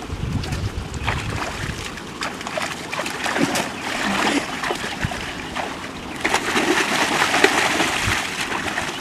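Shallow, muddy water splashing and sloshing as a person wades and grabs about in it with both hands. From about six seconds in it becomes louder and heavier as he lunges down into the water.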